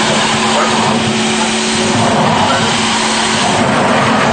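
Artificial geyser jetting water and spray, a loud steady rushing hiss, with a steady low hum underneath.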